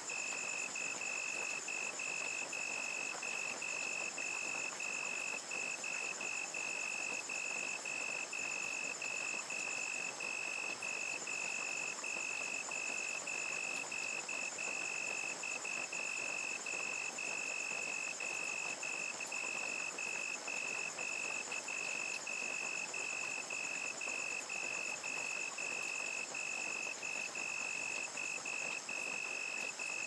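Crickets chirping steadily, about two chirps a second, over the even hiss of steady rain.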